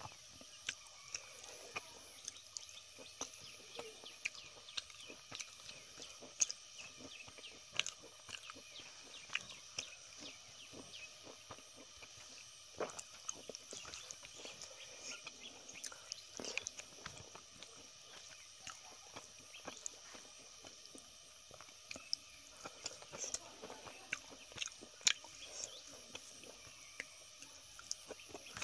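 A person chewing and crunching a rice-and-vegetable meal eaten by hand, picked up close: a run of irregular crisp mouth clicks and small smacks.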